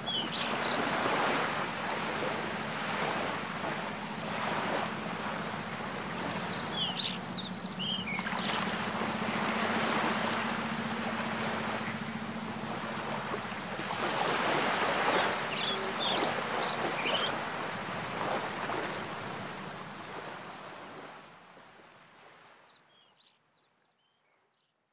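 Sea water washing and lapping along a rocky shore, swelling and easing every few seconds, under a steady low hum. A bird's short chirping call comes about every eight seconds, and everything fades out near the end.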